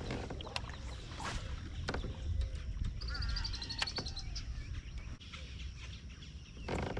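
Outdoor ambience on a kayak: a steady low rumble with scattered clicks and knocks, and a bird's rapid run of high chirps about three seconds in.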